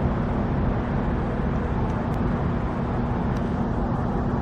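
Steady road traffic noise with a constant low hum.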